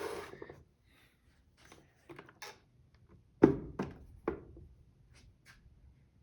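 Handling noise: a short rustle at the start, then three sharp knocks in quick succession about three and a half seconds in, followed by a couple of faint clicks. No fan motor is heard running.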